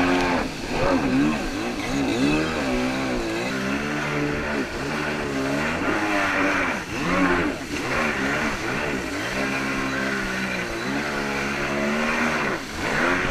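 Jet ski engine running under way, its pitch rising and falling over and over as the throttle is opened and eased.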